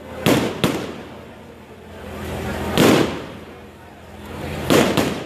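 Aerial fireworks bursting overhead: two quick bangs just after the start, a swell rising into the loudest bang near the middle, then two more bangs near the end.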